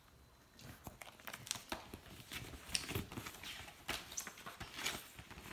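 Pages of a thin paperback picture book rustling as the book is handled and flipped through, a run of soft, irregular crinkles and taps.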